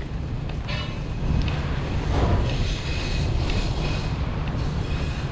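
Wind rumbling on the microphone over the steady hiss of rain in a city street, with the hiss swelling louder in the middle.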